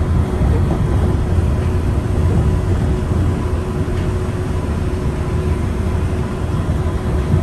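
Interior running noise of a Yurikamome rubber-tyred automated train on its elevated guideway: a steady low rumble with a faint, even whine over it.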